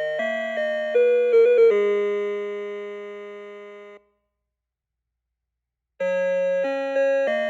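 Electronic melody-chip music from an ELGIN melody clock. A tune of beeping synth notes with a bass line ends on a long held note that fades out about four seconds in. After two seconds of silence the next tune starts.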